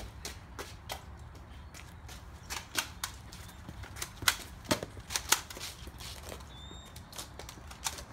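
Nerf toy blasters firing: sharp clicks and pops at irregular intervals, clustered in a quick run of shots around the middle.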